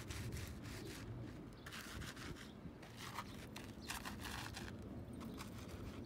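Flat shoes dragged across dry, gritty dirt: a run of separate crunchy scrapes, about one a second.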